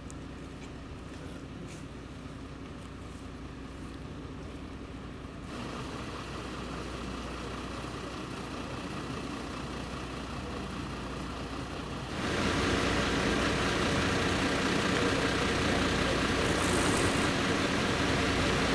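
Fire engine's diesel engine idling steadily. The sound suddenly gets louder about a third of the way in, and again about two thirds in.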